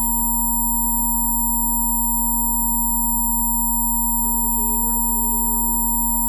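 Steady electronic Rife frequency tones: several pure tones sounding together without change, from a low hum through a mid-pitched tone up to thin high whistles.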